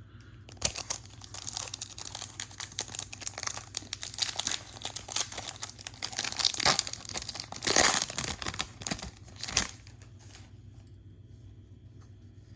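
A foil trading-card pack wrapper being torn open and crinkled by hand: several seconds of crackling and crumpling, loudest near the end, then stopping.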